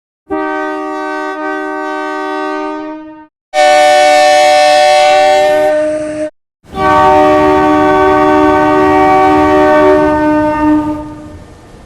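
Railroad locomotive air horn sounding three separate blasts, each a steady chord of several tones. The second and third blasts are the loudest. The last is the longest, at about five seconds, and fades out near the end.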